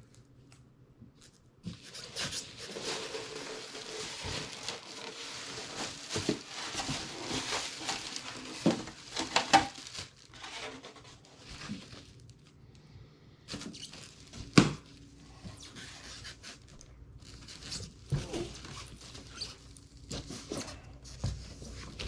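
Cardboard box and plastic packing being handled: a long stretch of crinkling and scraping, then scattered knocks and thumps, the sharpest about two-thirds of the way through.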